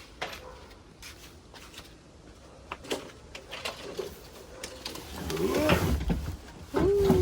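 Scattered light clicks and knocks of metal and wooden parts being handled while a wood lathe is unpacked from its crate. About five seconds in, a pitched sound wavers up and down, and near the end a drawn-out tone sets in, slowly falling in pitch.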